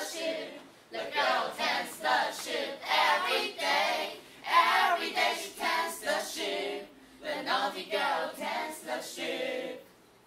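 A group of young teenage voices singing together without accompaniment, in short phrases with brief pauses between them.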